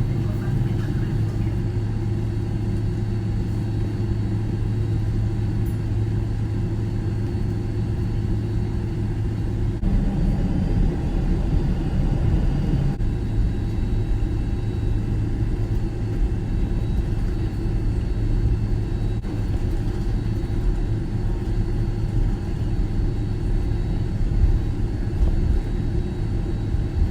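Steady engine and cabin hum inside a jet airliner, with a deeper rumble for a few seconds about ten seconds in.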